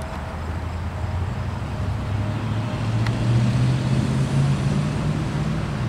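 Low, steady engine hum from a vehicle, growing a little louder after about two seconds.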